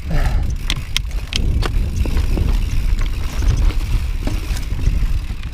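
Wind buffeting the microphone in a steady low rumble, with a few sharp clicks and knocks from a mountain bike on rocky trail, several of them in the first two seconds.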